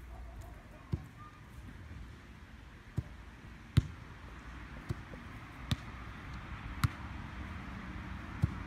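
A football being kicked and bouncing: seven sharp thuds at uneven spacing, roughly one a second, the loudest a little under four seconds in, over a steady outdoor hiss.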